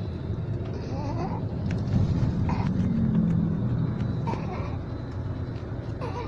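A sleeping baby snoring, a short snore about every one and a half to two seconds, over the steady low road rumble inside a moving car.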